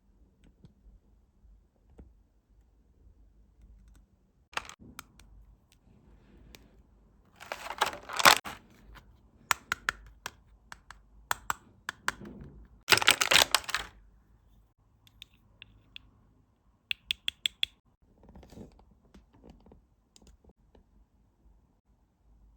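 Toys being handled: scattered clicks and taps, with two louder bursts of rustling about 8 and 13 seconds in and a quick run of clicks about 17 seconds in.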